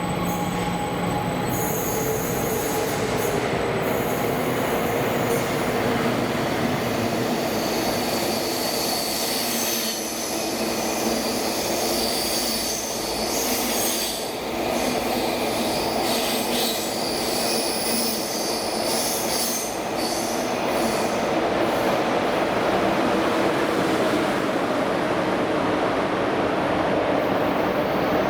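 A train running through the station: steady wheel and track rumble with high, steady wheel squeal over it.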